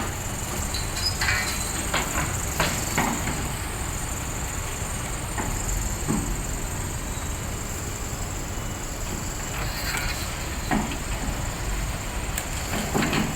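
Heavy earthmoving machinery at work: a diesel engine running steadily under a constant high hiss, with scattered clanks and knocks every few seconds.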